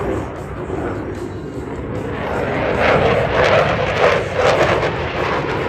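Fighter jet flying past, its engine noise growing louder about two seconds in and turning rough and crackling at its loudest.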